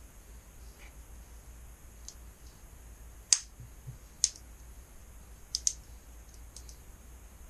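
A handful of sharp, light clicks spaced about a second apart, the loudest about three seconds in and a quick double click a little later, over a steady low hum.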